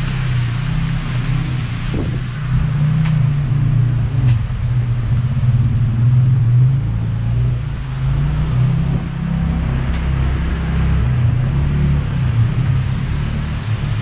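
Steady low rumble of city street traffic, with a few faint clicks.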